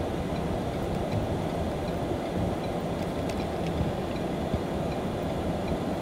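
Steady road and engine rumble of a car driving, heard from inside the cabin, with a few faint ticks.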